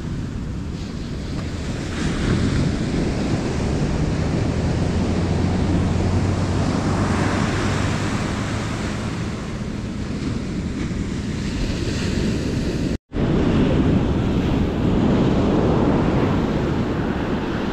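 Surf washing onto the beach, with wind buffeting the microphone and a low steady drone underneath for much of it. The sound cuts out for an instant about two-thirds of the way through.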